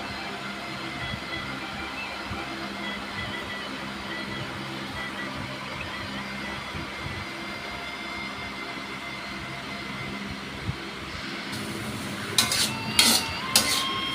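Steady hiss of cooking on the stove, with a few sharp clinks of a utensil against the pan near the end.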